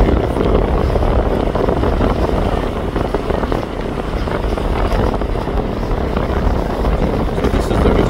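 Steady loud rumble of a ferry under way, its engines and the wind over the open deck blending into one even roar.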